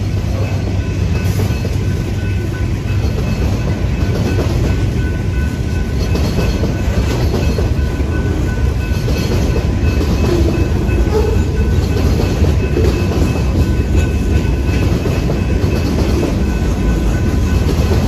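Freight train of boxcars rolling past close by: a steady, continuous rumble of steel wheels on the rails.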